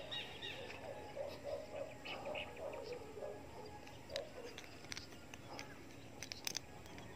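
Faint outdoor ambience with birds calling: short repeated notes and chirps over the first few seconds, then a few sharp clicks near the end.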